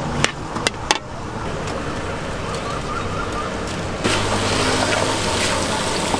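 A metal spatula clacks against a steel wok three times near the start, then stirring and frying noise. About four seconds in, a steady low engine hum from a vehicle joins and stays.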